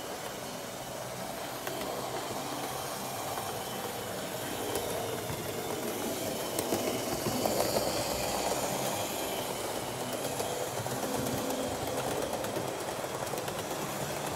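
Model train running on the layout's track: a model V200.1 diesel locomotive pulling passenger coaches, with the rattle of wheels on the rails and a steady motor hum. It grows louder as the locomotive passes close, about halfway through, then eases off as the coaches roll away.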